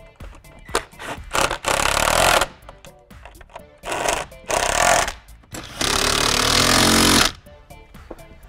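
Cordless power driver running in four short bursts as it drives screws to fasten a speaker enclosure and dash panel, the last burst the longest. Faint background music with a beat runs underneath.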